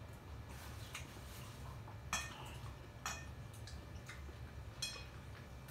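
Chopsticks and a spoon clinking against a glass bowl while eating: a few short, ringing clinks, the clearest about two, three and five seconds in.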